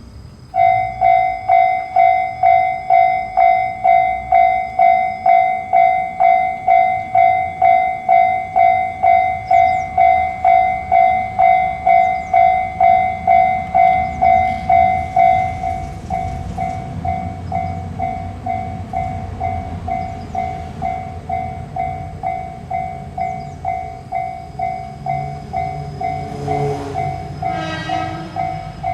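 Japanese level-crossing warning bell starting about half a second in and ringing in a steady rapid rhythm of about two dings a second, becoming quieter about halfway through. Under it the low rumble of an approaching train builds, and near the end the train sounds its horn briefly.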